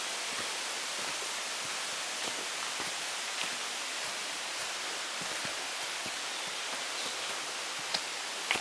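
Footsteps scuffing through dry leaf litter on a forest trail, a few soft steps over a steady hiss, with one louder step about eight seconds in.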